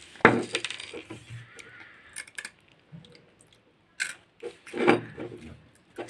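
Nesquik cereal balls clinking and rattling against a small ceramic bowl as a hand scoops them out, in sudden bursts near the start and again about four and five seconds in.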